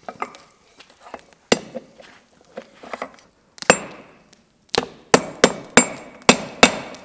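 Blacksmith's hand hammer striking a red-hot square plate on an anvil while forging the base of a toilet-paper holder: a few light taps and two single hard blows, then a run of strikes about three a second over the last two seconds, some with a brief high ring.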